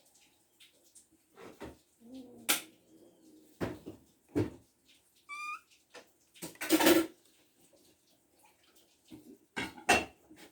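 Cats jumping and swatting at a chicken bone dangled on a line: a string of sudden thumps and scuffs, with one short rising high chirp about five seconds in.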